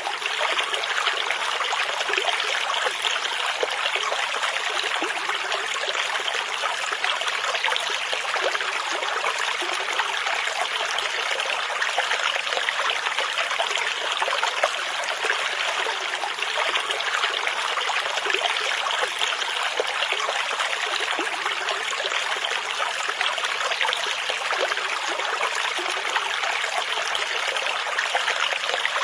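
River water flowing, a steady unbroken rush of a stream.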